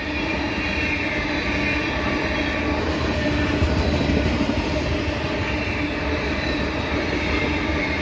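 Loaded three-bay covered hopper cars of a potash unit train rolling past at speed: a steady rumble and rattle of wheels and cars on the rails.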